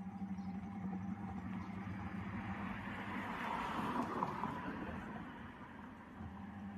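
Washing machine in its spin cycle: the motor hums steadily as the drum spins, with a swell of rushing noise about three to four seconds in.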